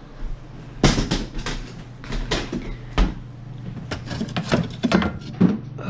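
A string of irregular clicks, knocks and rattles as parts of a light fixture are handled, over a steady low hum.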